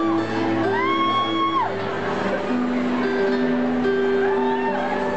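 Live pop concert music heard from the crowd: plucked guitar notes moving in a steady pattern. Twice, a high voice swoops up, holds and falls away over the guitar.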